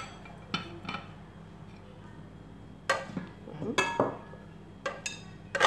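Metal spoon clinking and scraping against a glass bowl while stirring a dry nut-and-coconut filling, then the bowl and its ceramic plate knocking as they are handled. The clinks come irregularly, a few at a time, with the loudest near the end.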